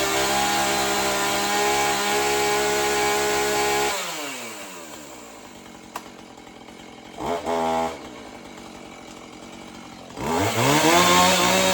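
Husqvarna 445 two-stroke chainsaw running at high revs, then the revs fall away about four seconds in. It gives a short blip of throttle about three seconds later, then revs up again near the end and holds there, running after being brought back from a no-start condition.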